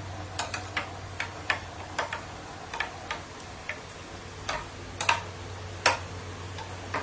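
Spoon clicking and knocking against a plate during fast eating: irregular sharp clicks, a couple of them louder about five and six seconds in, over a steady low hum.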